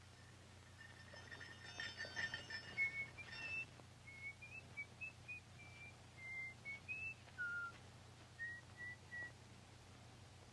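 A person whistling a slow, halting tune, faint: a string of short, clear notes that step up and down, with one lower note about three-quarters of the way through.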